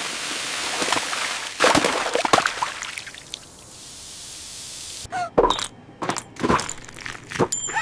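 Cartoon sound effects: a long rushing whoosh of noise that fades away over about four seconds, then a quick run of clicks, pops and short squeaky blips.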